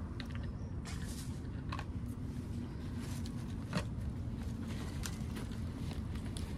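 Scattered rustles and small clicks of a water bottle and a nylon backpack being handled, with dry leaves crackling underneath, over a steady low rumble.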